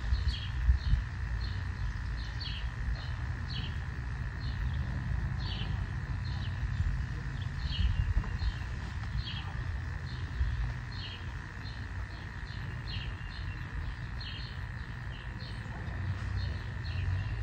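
A bird chirping over and over, short high chirps about two a second, over an uneven low rumble.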